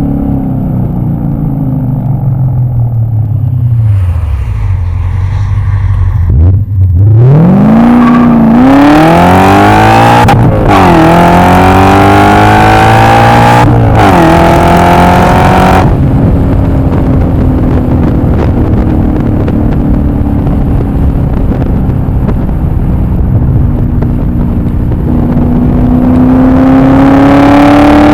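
E39 BMW M5's V8 engine under hard acceleration: revs drop away, then climb steeply through the gears, with quick upshifts about ten and fourteen seconds in. The engine then settles to a steady cruise and revs up again near the end.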